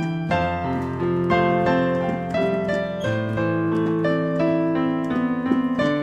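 Piano playing an embellished arrangement of a song melody, with chords and a sustained low bass line under it.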